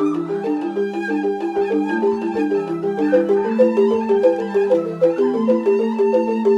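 Rindik, the Balinese bamboo xylophone, playing fast, evenly repeated mallet strokes in a busy cycling pattern, with a held melody line running above it.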